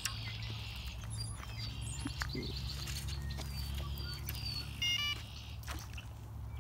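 Birds singing, with repeated high chirping and short falling whistled notes, over a steady low rumble.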